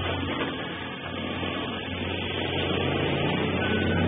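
Several old 1940s–50s car engines running together with a steady low rumble as a crowd of cars pulls away at once.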